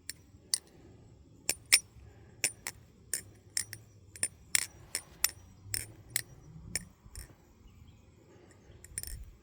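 New Era Sunshine balisong being flipped: sharp metallic clicks and clacks as the handles and latch knock together, about twenty in irregular quick runs, then a pause and a short rattle near the end.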